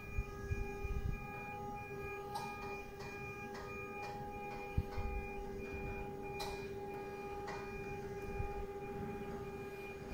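Hydraulic double-deck floor of a Schmitz trailer lowering: its hydraulic drive gives a steady whine, with a few sharp clicks and knocks from the moving deck along the way.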